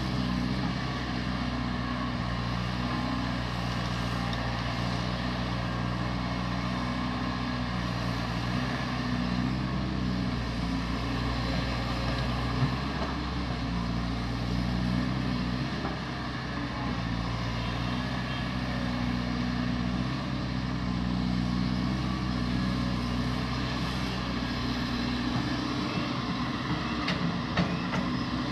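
Caterpillar 320D hydraulic excavator's six-cylinder diesel running steadily under working load, its drone rising and easing every few seconds as the hydraulics work. A sharp knock about twelve seconds in and another near the end.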